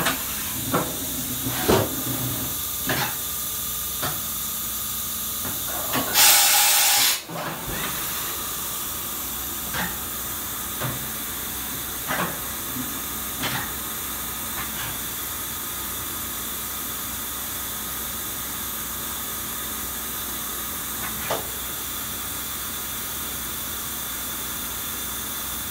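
Steady hiss around an idle Kitamura vertical machining center, with scattered light clicks and knocks, and a loud burst of hiss lasting about a second some six seconds in.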